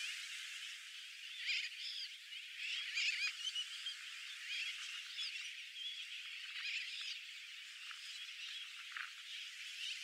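Nesting colony of sooty terns and brown noddies calling: a dense, unbroken chorus of many overlapping short cries, louder clusters a second or two in and around three seconds in. The recording sounds thin, with the low end filtered away.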